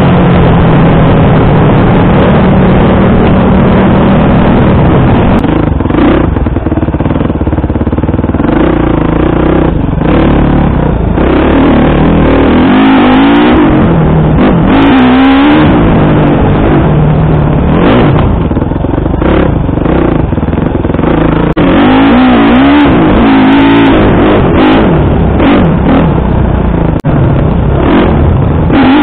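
Small motorcycle engine ridden hard, its pitch rising and falling over and over as the throttle is opened and closed, with occasional knocks as the bike rides over rough ground.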